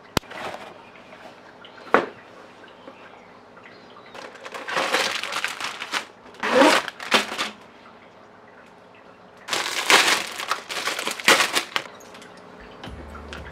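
Plastic bag holding white model-kit runners crinkling and rustling as it is handled, in three bursts, with two sharp knocks of the cardboard box in the first two seconds.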